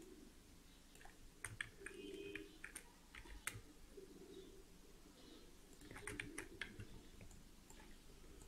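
Faint, scattered clicks of a computer keyboard and mouse over near-silent room tone.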